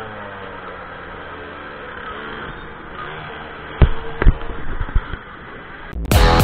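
Minimoto engines running, with an engine note falling in pitch at the start and two sharp knocks about four seconds in. Music cuts in near the end.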